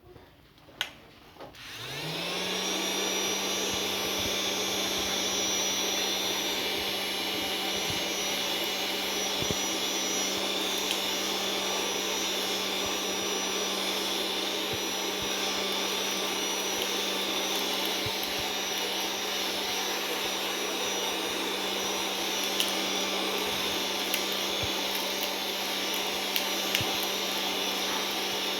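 Handheld crumb vacuum switched on with a click or two, its motor spinning up in about a second with a rising whine, then running steadily with an air rush and a few faint ticks. The uploader describes the vacuum as malfunctioning.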